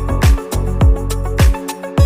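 Background music with a steady beat: a deep kick drum about every 0.6 seconds, with sharp percussion between the kicks, over sustained instrument tones.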